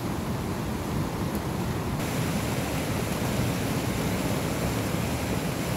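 Small mountain river rushing over stones: a steady, even wash of flowing water.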